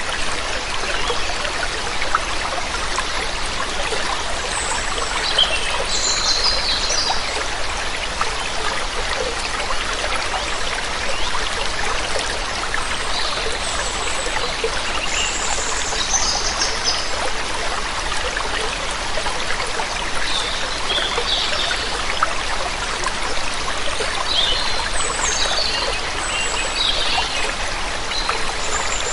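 Waterfall water rushing steadily, with birds chirping in short high bursts every few seconds.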